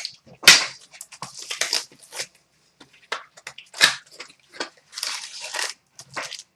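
Packaging of a trading card mini box being opened: irregular crinkling, rustling and tearing of cardboard and pack wrappers, heaviest about five seconds in.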